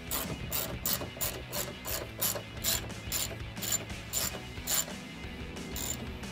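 Hand ratchet clicking as it tightens a headlight mounting bolt: an even run of clicks about two a second that stops about five seconds in, then one more click.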